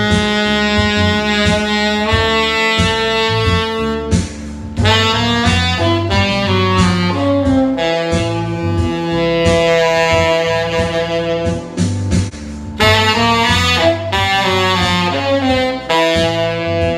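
Yamaha tenor saxophone with a Theo Wanne Durga mouthpiece and Yamaha Custom V1 neck, playing a jazz solo of held and gliding notes over a bass-and-drums backing track. The horn stops briefly twice, about four and twelve seconds in.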